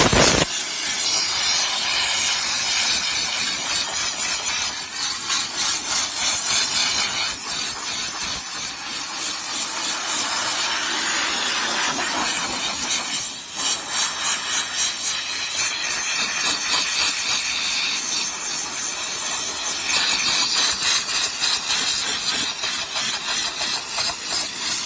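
High-pressure steam jet from a steam car washer's spray gun hissing steadily as it blasts snow and ice off a car's wheel arch, with a brief break about halfway through.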